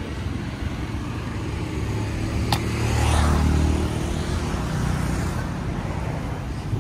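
Road traffic running steadily, with a vehicle passing close by near the middle, its low rumble swelling and fading. A single sharp click sounds about two and a half seconds in.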